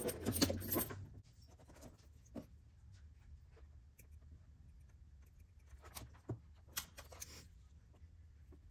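Handling noise from small-parts work under a car's dash: a short rustle at the start, then a few scattered light clicks and taps over a faint low hum.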